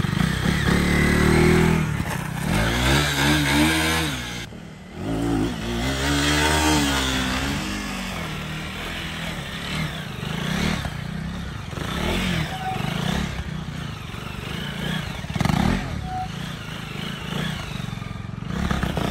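Motorcycle engine revving, its pitch rising and falling several times, with a short drop about four and a half seconds in. It then runs on rougher and less even, with clattering noise.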